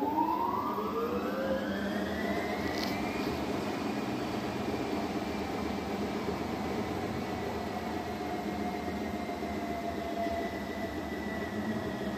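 Primus commercial front-load washing machine ramping up its drum speed. A motor whine rises in pitch over the first three seconds or so, then holds steady at speed over a constant running hum, typical of a washer starting a spin.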